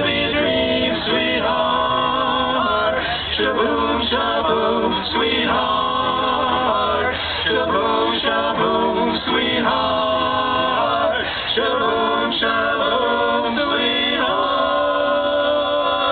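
Male vocal group of three singing a song together in harmony, amplified through a PA, holding a long chord near the end.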